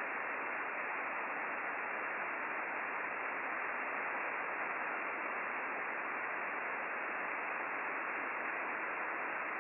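Steady hiss from an Icom IC-9700 transceiver tuned to the RS-44 satellite's downlink in upper sideband, with no station coming through: just band noise.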